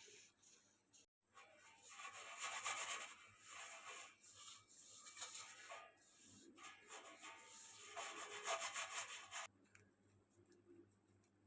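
Uneven rubbing or scraping strokes, starting after a brief cut to silence about a second in and stopping abruptly near the end.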